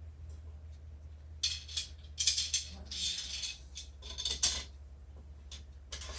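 Metal T-track and stop block hardware being handled and slid: rattling, scraping clicks in several bursts over about three seconds, over a low steady hum.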